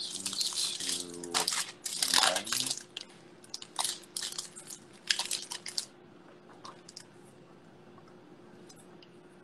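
Felt-tip marker scratching across a photo or card in quick, short strokes while an autograph is written, stopping about six seconds in; a faint steady hum runs underneath.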